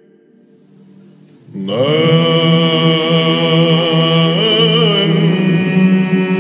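Byzantine chant: after a short pause, about one and a half seconds in, voices enter over a steady low drone (the ison), the melody holding a long note with small ornamental turns.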